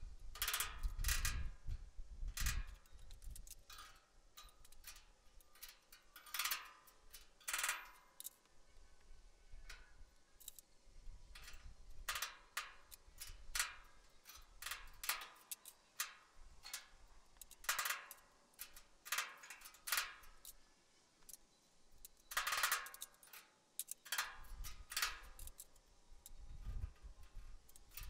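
Irregular sharp metal knocks and clanks in loose clusters with short gaps, as tools and steel parts are handled and tapped during fabrication. A low rumble sits under the first few seconds and returns near the end.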